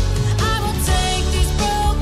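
Background pop song: a sung melody over a steady beat.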